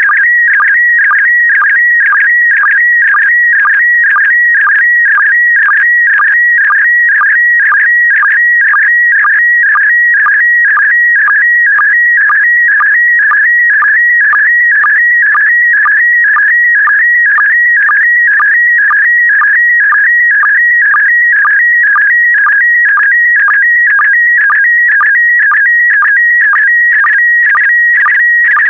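Slow-scan TV (SSTV) signal in PD120 mode: a continuous high, warbling electronic tone that jumps between pitches as it encodes image brightness and colour. It is punctuated by a regular pulse about twice a second, each marking the start of a new pair of scanned picture lines.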